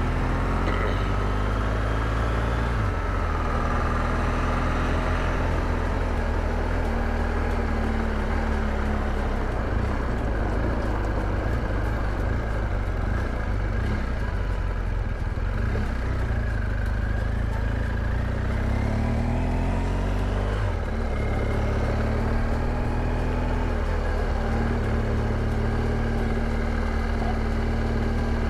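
BMW R1200GS Adventure's flat-twin engine running at low speed, its pitch falling and rising a few times.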